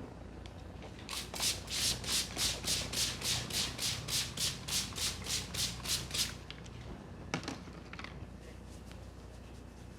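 Hands rubbing briskly over hair and scalp in a head massage: a run of about eighteen even, hissing strokes at about three to four a second that stops suddenly, followed a second later by a single sharp click.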